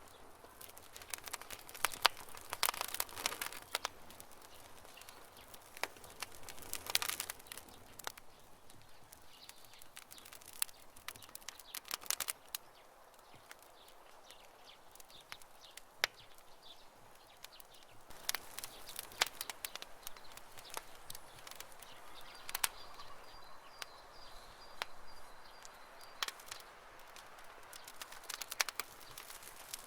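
Wood campfire crackling, with irregular sharp pops that come in clusters, densest a couple of seconds in, around seven seconds and about two thirds through. A faint, high, steadily repeating call runs in the background for a few seconds near the three-quarter mark.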